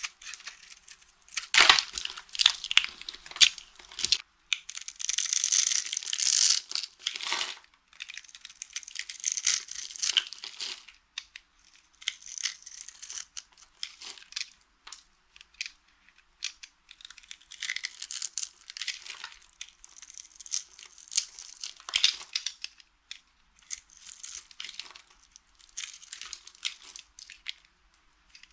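Dry soap being crushed into crumbs, a dense, irregular crunching and crackling that comes in bursts, heaviest in the first several seconds and lighter after.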